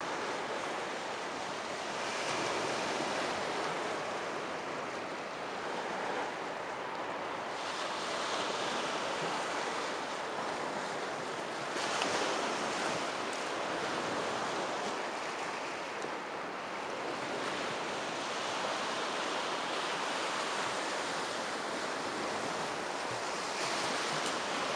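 Sea waves washing onto the shore in a steady rush, swelling every few seconds as each wave breaks.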